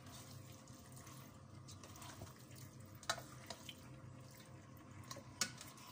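Marinated chicken pieces being stirred with a spoon in a stainless steel pot: faint wet stirring sounds, with a few light clicks of the spoon against the pot.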